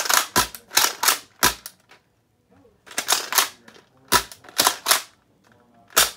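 Nerf Mega Cyclone Shock dart blaster being primed and fired repeatedly: a run of sharp plastic clacks in quick clusters, with a short pause about two seconds in.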